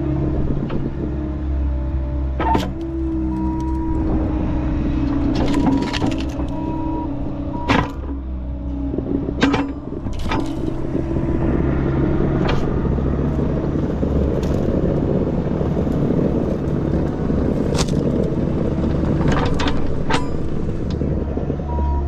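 Skid steer engine running steadily under load, with intermittent sharp clanks and knocks as old fence posts are pulled out of the ground.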